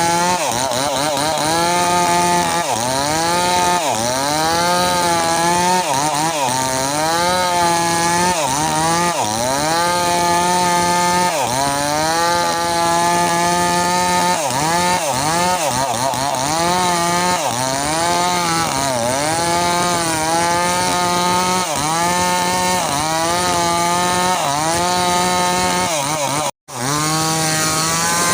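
Mini chainsaw engine running under load while cutting an oil palm trunk, its pitch repeatedly sagging and climbing back every second or two as the chain bites into the wood. A brief drop-out near the end.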